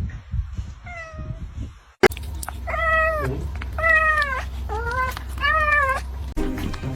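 Domestic cat meowing four times in quick succession, each call rising and then falling in pitch, after one fainter meow about a second in.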